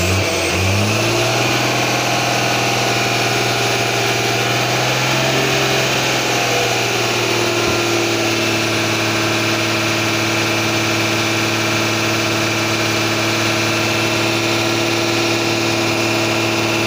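Tata 3718 truck's diesel engine running. It speeds up over about the first second, then holds a steady, fast idle.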